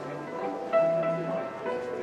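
Orchestral music with strings, playing a melody of held notes.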